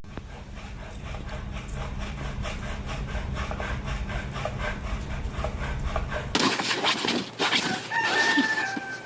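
A steady low hum with a regular rasping rhythm, then after a cut a rooster crows once, about a second long and falling slightly in pitch near the end.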